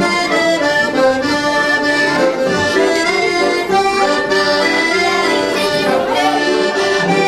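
Accordion playing a traditional folk dance tune in steady rhythm, with chords and a melody of held notes.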